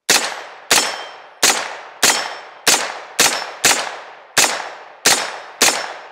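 Arrow Precision pistol caliber carbine firing about ten shots in steady semi-automatic fire, roughly one every two-thirds of a second, each crack trailing off in an echo. It is feeding from an Amend2 aftermarket Glock magazine being tested for malfunctions, and it fires without a stoppage in this stretch.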